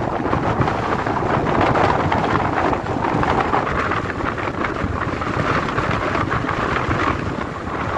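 Strong storm wind gusting, with the wind buffeting the microphone as a heavy low rumble under a steady rushing noise.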